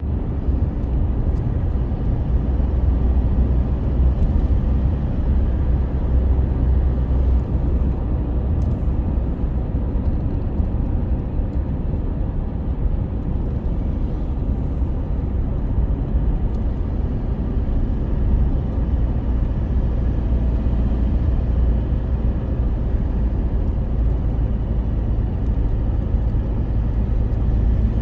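A vehicle running steadily, with a continuous low rumble.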